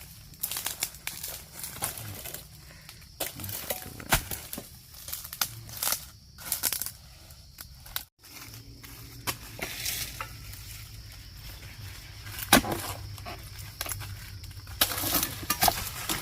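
Irregular crunching and crackling clicks, like dry plant matter being trodden or broken, with one sharp knock about twelve and a half seconds in. The sound cuts out for a moment just after eight seconds.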